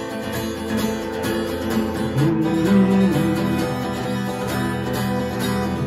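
Guitar playing chords in a short instrumental gap between sung lines of a song.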